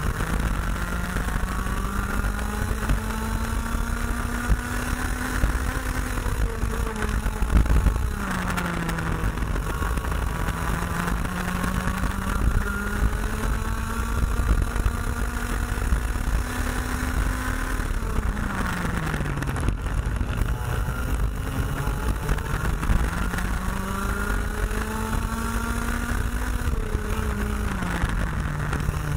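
IAME X30 125cc two-stroke kart engine heard onboard at racing speed. Its revs climb slowly along each straight, then fall off sharply as the kart brakes for a corner, three times, before climbing again.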